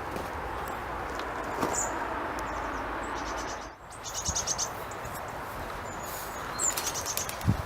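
Steady machinery noise from a commercial laundry plant, with a low rumble underneath and small birds chirping over it. The sound drops out for a moment about four seconds in, after which the low rumble is weaker.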